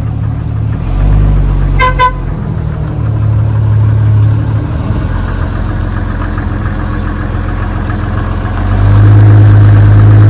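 Car engine running, with a short horn toot about two seconds in; the engine gets louder near the end.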